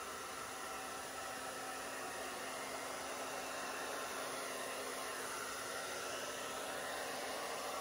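Hair dryer running steadily on its cool setting at high fan speed.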